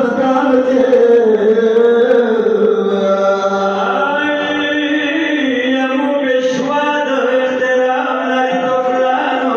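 A voice chanting a Pashto noha, a Shia lament for Imam Hussain, in long held notes that glide slowly up and down.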